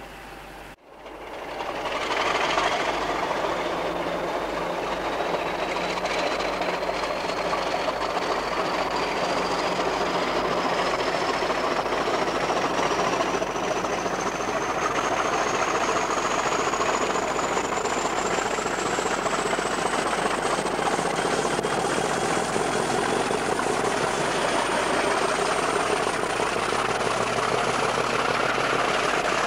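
Diesel locomotive running with a train: steady engine and rail noise, with a thin high whine rising slowly in pitch throughout. It starts after a brief dropout about a second in.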